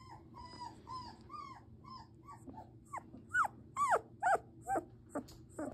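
Two-week-old German Shepherd puppy whimpering: a string of short, thin squeaks, two or three a second. About three seconds in they turn louder and higher, with sharp upward-then-downward swoops.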